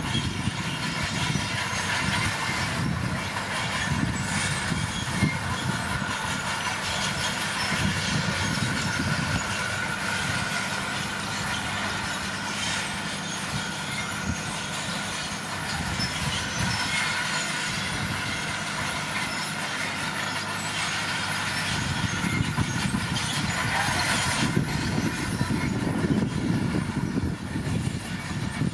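Komatsu D41P crawler dozer at work: its diesel engine running under load with the steel tracks clanking, a steady rumble with a thin whine on top.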